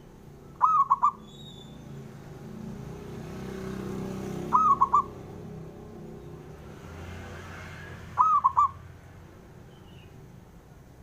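Zebra dove (perkutut) cooing: three short bursts of its rolling, looping call, each about half a second of quick linked notes, repeated every three to four seconds. A low background rumble rises and falls beneath it around the middle.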